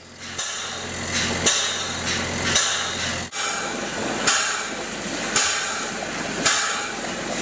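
Bentonite grout mixing rig running: a steady engine drone under a rhythmic hissing stroke about once a second.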